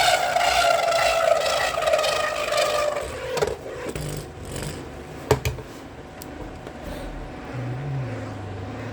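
Soar Phoenix 9-60GF Beyblade X top spinning in a plastic stadium, its high whine falling steadily in pitch as the spin slows down. A couple of sharp clacks follow, the louder one about five seconds in, and then only a faint rattle remains.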